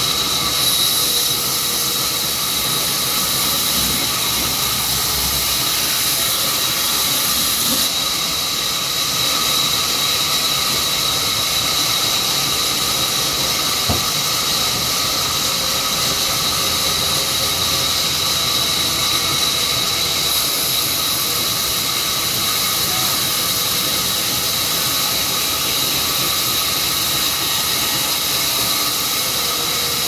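Sawmill saw cutting lengthwise through a mango log: a steady high-pitched whine over a hiss, running without a break.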